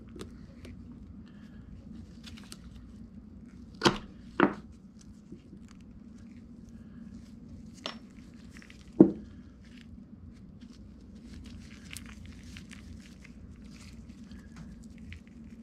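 Metal pump valve parts and a hand pick knocking and clicking on a workbench as they are handled and fitted with O-rings: two sharp knocks about four seconds in, one near eight seconds and the loudest about nine seconds in, with faint scraping ticks near the end, over a steady low hum.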